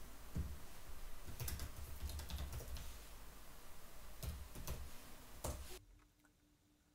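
Typing on a computer keyboard: a short run of separate key clicks as a command is typed and entered.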